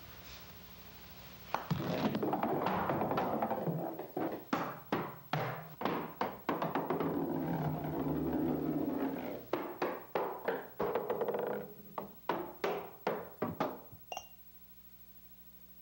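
A golf ball rolling and bouncing down a flight of stairs: stretches of rumbling roll broken by runs of hard thuds, about three a second, that fade as it goes. Just after 14 s the ball hits a drinking glass with a short, light clink.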